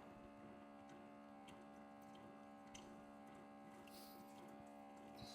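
Faint steady electrical hum at several fixed pitches, with a few soft ticks.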